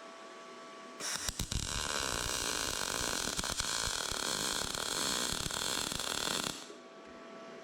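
R-Tech 181 digital MIG welder running a weld on thin mild steel. The arc strikes about a second in with a few stuttering sputters, then gives a steady crackling sizzle for about five seconds and cuts off suddenly.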